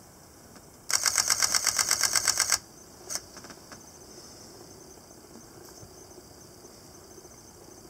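Camera shutter firing in continuous burst mode: a rapid, even run of about seventeen clicks at roughly ten a second, starting about a second in and lasting just under two seconds. A single shorter click follows about half a second later.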